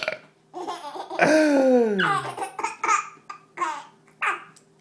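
Baby laughing in a string of short bursts, with a longer vocal sound falling in pitch about a second in.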